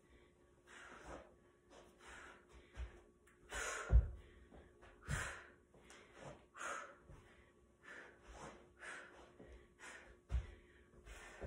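A woman breathing hard from exertion, with short sharp breaths in and out about once a second. A few dull thuds come from her body landing on the floor, the loudest about four seconds in.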